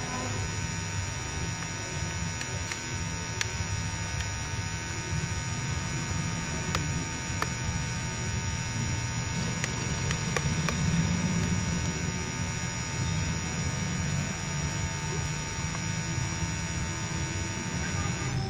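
Radio-controlled model excavator's electric motors whirring steadily as it works its boom and bucket in the soil, with a few scattered ticks.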